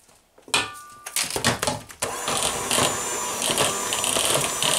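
Knocks and clatter as an electric hand mixer is picked up and its beaters set in the bowl, then about two seconds in the mixer switches on and runs steadily, beating flour into thick cake batter.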